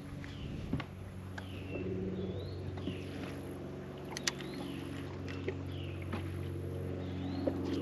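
Bow-mounted electric trolling motor humming steadily under a bass boat, with occasional light clicks and a short high chirp repeating about once a second.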